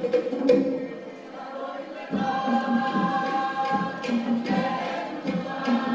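A group singing a Cook Islands song in chorus over a steady low beat, the singing dropping quieter for about a second near the start.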